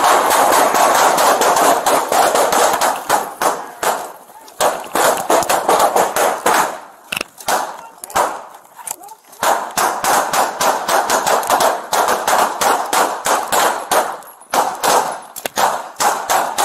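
Sustained gunfire from police handguns: many shots from several guns in rapid succession, with brief lulls about four seconds in and again around eight to nine seconds in.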